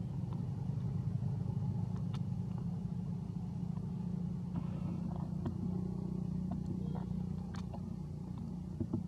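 A motor running steadily, heard as a low rumble, with a few faint clicks over it.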